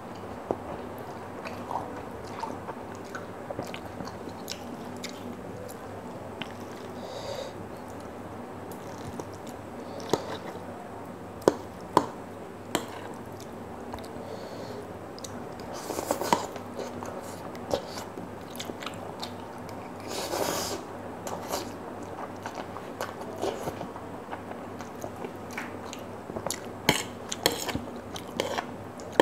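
Close-up eating sounds of a person chewing and slurping instant noodles, with a few sharp clicks of a metal fork against a ceramic plate.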